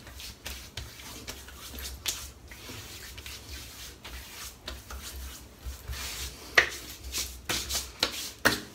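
Hands rubbing aftershave splash over a freshly shaved bald scalp: irregular skin-on-skin rubbing with sharper pats, a few louder ones in the second half.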